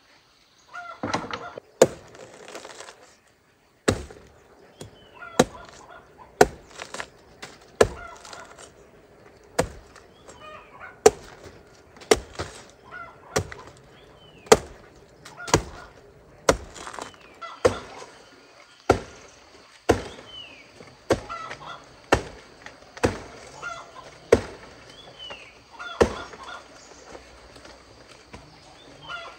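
Steady chopping with a blade, one sharp strike roughly every second, while poultry cluck and call.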